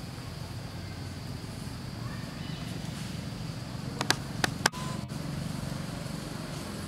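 Steady low outdoor rumble, with three sharp clicks in quick succession about four seconds in and a brief drop in the sound just after.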